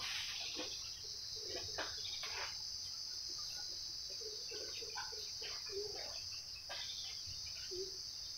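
A steady, high-pitched insect chorus, with short faint blips and clicks scattered through it.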